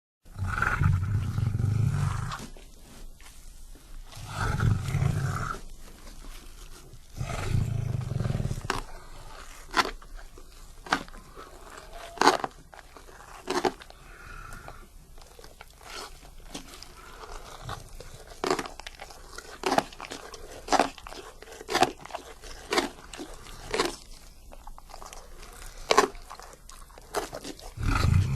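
A lion feeding: three deep growls in the first nine seconds, then a long run of sharp crunches roughly once a second as it chews, with another growl starting near the end.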